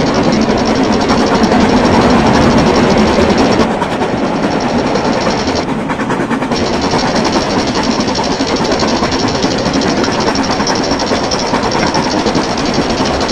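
Ride-on garden-scale model locomotive, a BR Britannia No. 70000, running along its track: a steady, fast clatter of wheels and running gear on the rails, slightly quieter from about four seconds in.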